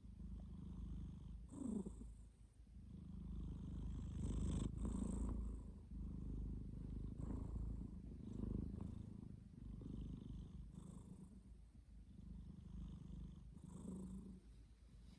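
A domestic cat snoring in its sleep: a low, raspy rumble that swells with each breath, about every two to three seconds.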